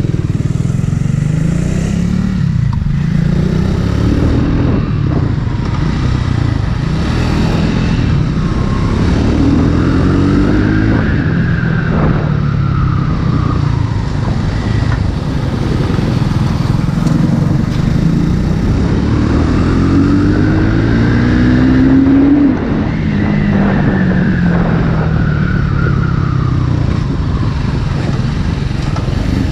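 Triumph Speed 400's single-cylinder engine and exhaust under way, revs climbing through the gears and falling back sharply at each shift or throttle lift, twice clearly near the middle and later on.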